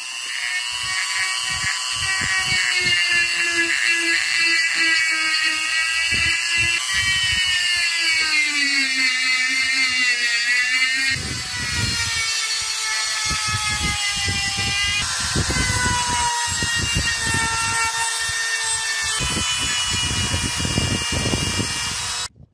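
Handheld rotary tool with a sanding drum running at high speed, sanding a steel nail clipper lever: a high motor whine that sags in pitch where the drum bears on the metal, over a gritty sanding rasp. The whine jumps abruptly in pitch several times and cuts off just before the end.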